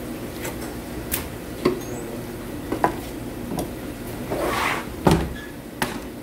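Knocks and taps of a large fish and a filleting knife being handled on a plastic cutting board, with a short rustling slide just before the loudest thud about five seconds in as the fish is flipped over, over a steady background hum.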